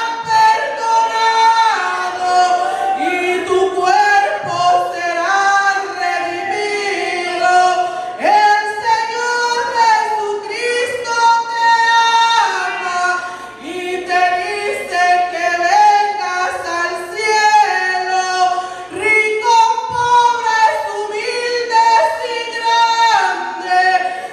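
A woman singing a Spanish praise hymn (alabanza) into a handheld microphone, amplified over the church's sound system, with long held notes and gliding phrases.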